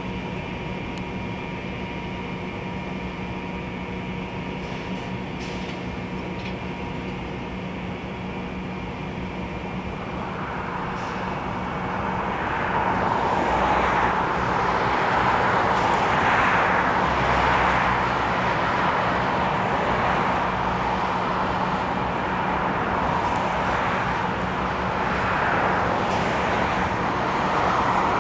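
EMD SD60 diesel-electric locomotive running steadily, then growing louder about ten seconds in with a pulsing rushing noise as it moves in while backing up.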